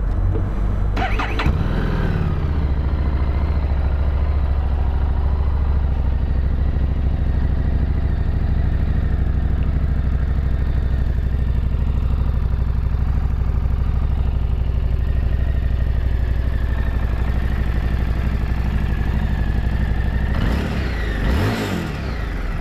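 Harley-Davidson Street 750's liquid-cooled V-twin running at a steady idle. It is blipped briefly about a second in, and revved up and back down once near the end.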